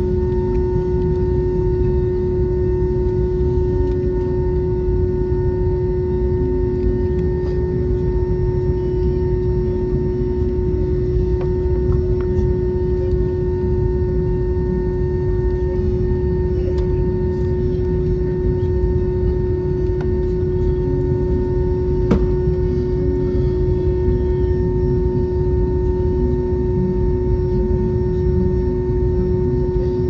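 Jet airliner cabin noise while taxiing: a steady low rumble from the engines at idle, with a constant hum over it. There are a couple of faint clicks.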